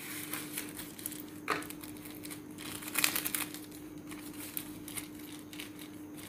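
A small clear plastic bag crinkling as it is handled and pulled out of a small cardboard box. There are irregular crackles, loudest around three seconds in.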